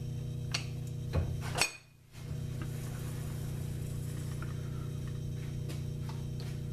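1942 South Bend lathe running with a steady motor and drive hum while the tool chamfers the corner of the workpiece. A few sharp metal clicks come in the first couple of seconds. The sound drops out briefly about two seconds in, then the same steady running hum returns.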